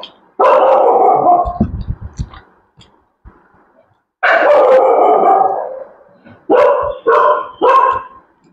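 Dog barking loudly: two long drawn-out barks, then three short barks in quick succession near the end.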